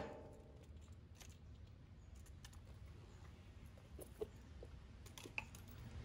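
Near silence broken by faint handling noises: a sharp metallic clink with a brief ring right at the start, then scattered small clicks and taps as a cordless hammer drill and its chisel bit are handled on stone.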